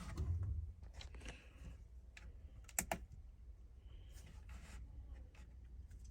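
Scattered light clicks and knocks of small metal parts being handled and set down for weighing, the sharpest click a little before the middle.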